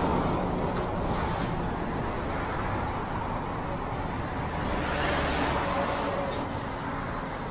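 Steady road traffic noise from a city street, a continuous rush.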